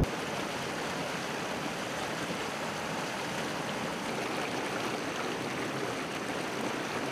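Water rushing in a stream, a steady even hiss.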